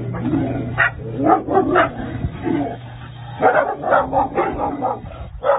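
Dogs barking and yipping in quick short barks, with a lull in the middle and then a fast run of barks in the last two seconds.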